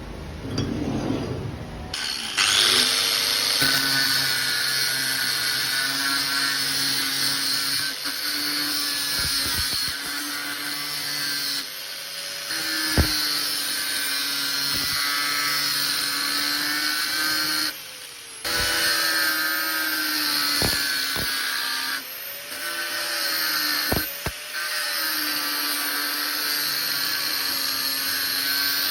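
Handheld electric power tool running steadily, its motor pitch dipping and recovering as it is pressed into the work, starting about two seconds in and cutting out briefly a couple of times.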